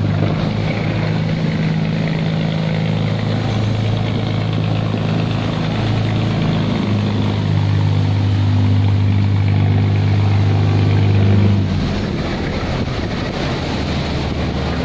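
Diesel engines of river barges passing close through a sluice gate, a steady deep hum. It is louder in the middle and drops off about twelve seconds in, over water churning in a strong current.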